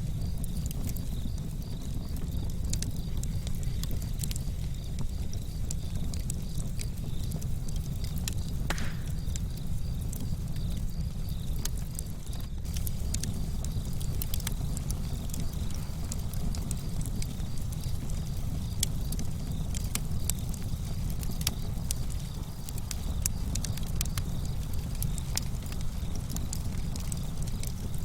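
Campfire of burning wood crackling, with frequent sharp pops and clicks over a low steady rumble.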